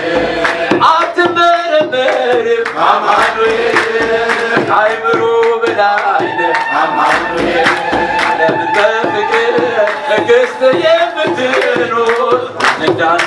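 A man's amplified voice singing an Ethiopian Orthodox hymn (mezmur) through a microphone, accompanied by repeated hand clapping.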